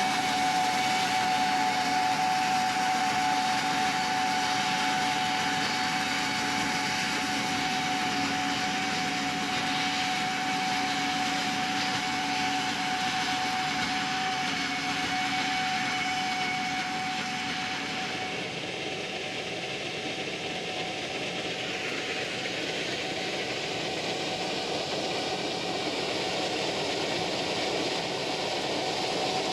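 Gleaner S67 combine running steadily while harvesting soybeans: a dense mechanical rush with a steady whine that fades out a little past the halfway point.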